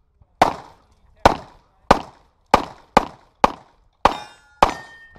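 Pistol fired eight times in an uneven string during a practical shooting stage, the shots about half a second to under a second apart. After the seventh shot, about four seconds in, a metallic ringing lingers for about a second.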